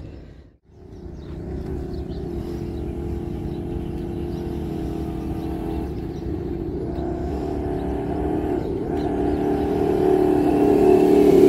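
Electric motor and gearbox of a Traxxas RC crawler truck whining steadily as it drives over dirt. The sound grows louder as the truck approaches, after a brief dropout about half a second in.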